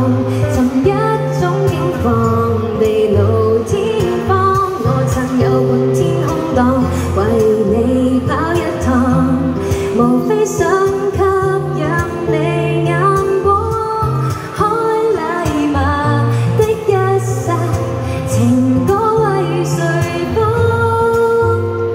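A woman singing a pop song into a handheld microphone, accompanied by an acoustic guitar, amplified live.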